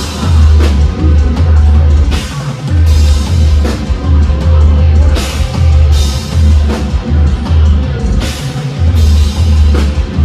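A metal band playing live and very loud. A low, heavy guitar-and-bass riff comes in stop-start blocks under pounding drums and repeated cymbal crashes.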